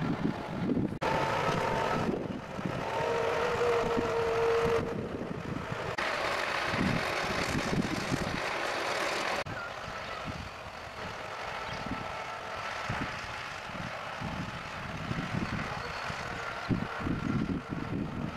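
Truck-mounted hydraulic crane's engine and hydraulics running with steady tones, heard in short cut-together stretches that change abruptly several times, with wind buffeting the microphone.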